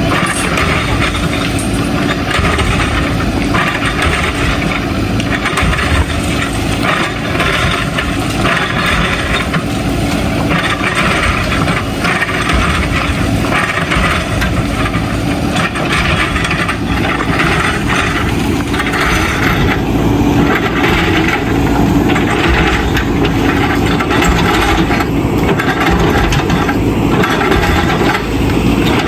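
JCB 3DX backhoe loader's diesel engine running steadily, with repeated clatter of broken bricks and rubble being scraped and moved.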